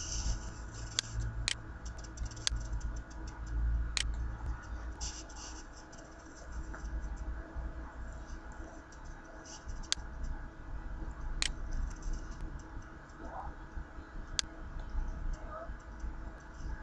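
Computer mouse clicks, single and spaced several seconds apart, over a faint steady low hum.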